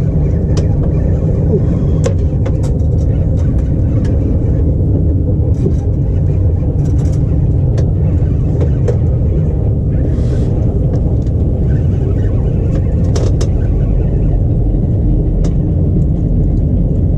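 Steady low rumble of wind buffeting the camera microphone on open water, at an even level throughout, with scattered light clicks and knocks of rods and gear.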